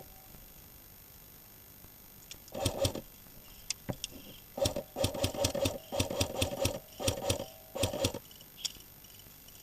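Airsoft rifle firing several bursts of rapid shots, each with a whirring drone under the clicks, starting about two and a half seconds in and ending about a second before the end, with a few single clicks between them.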